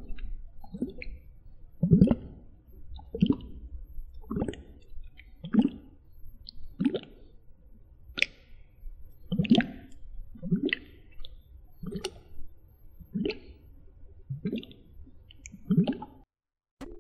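Wet squishing ASMR water trigger sounds, repeated evenly about once every second and a bit, cutting off abruptly near the end.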